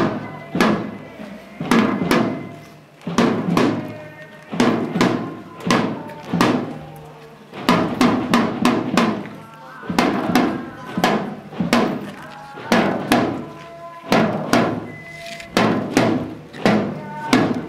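Marching side drum beaten with sticks in a slow, steady procession cadence of about two strokes a second. Each stroke is sharp with a short rattle after it, and the beat runs in repeating phrases broken by brief pauses.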